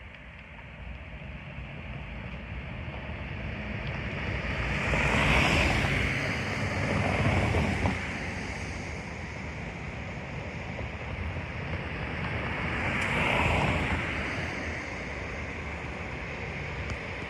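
Vehicles passing by outdoors: a steady rumble with two swells, each rising and then fading, over wind noise on the microphone.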